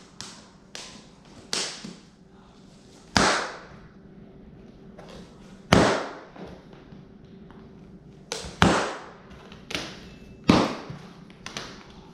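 Packing tape on a cardboard shipping box being cut and worked open by hand: about a dozen sharp scraping, ripping strokes, each fading over about half a second, the loudest coming every two to three seconds.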